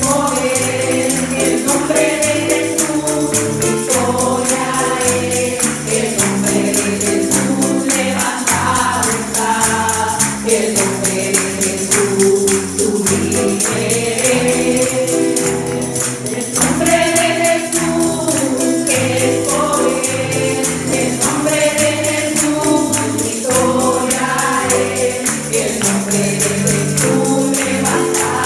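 Congregational gospel worship music: a group singing in chorus over a band, with a steady shaken tambourine rhythm.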